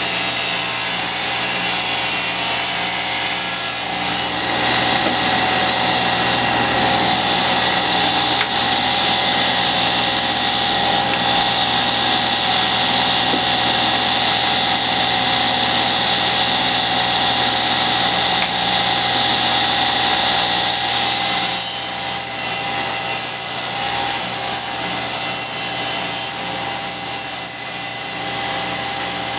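Table saw running and ripping a long wooden board lengthwise along the fence. It is a steady, continuous noise whose tone changes about four seconds in and changes back a little after twenty seconds.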